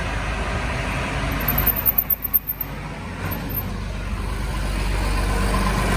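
Tractor engine running with a steady low rumble as it drives off. There are a few uneven bumps around two seconds in, and engine noise grows louder near the end as another vehicle comes close.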